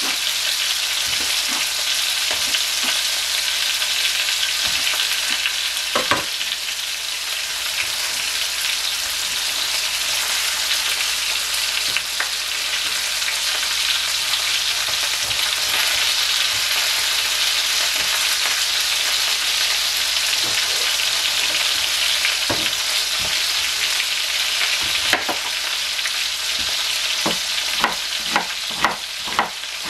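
Chef's knife on a cutting board: scattered knocks while sausage is sliced, then a steady run of chops about two a second near the end as an onion is cut. A steady hiss runs underneath throughout.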